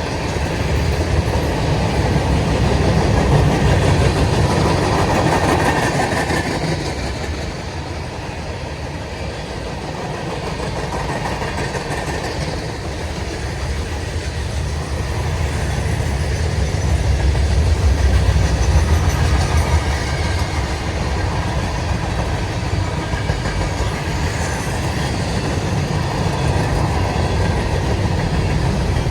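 Manifest freight train's cars rolling past at speed, a continuous heavy rumble of steel wheels on rail with clickety-clack over the joints, swelling and easing slowly.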